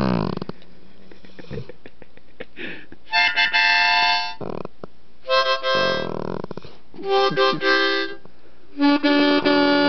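A harmonica played in four short chords, each about a second long. Between them a dog hums along, its voice sliding down in pitch after the chords.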